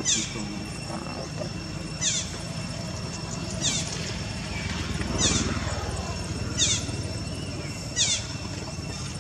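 A bird calling: a quick, high, falling note repeated about every second and a half, over a steady low outdoor rumble and a faint steady high tone.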